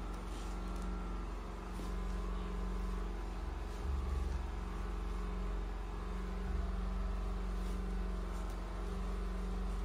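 A steady mechanical hum with a low rumble, like an engine or motor running, with a brief swell in the rumble about four seconds in.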